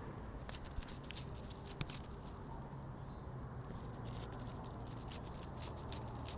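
Light, irregular fluttering clicks and taps over a steady low rumble: a sound effect of a butterfly's wings flapping.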